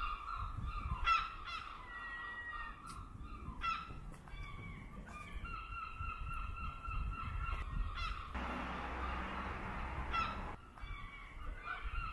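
Gulls calling repeatedly in short, harsh cries over a steady low rumble of wind. A broad hiss swells up about eight seconds in and stops some two seconds later.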